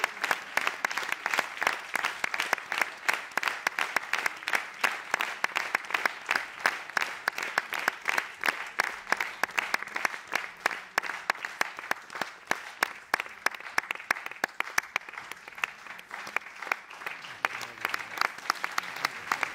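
Theatre audience applauding steadily, a dense even clapping of many hands.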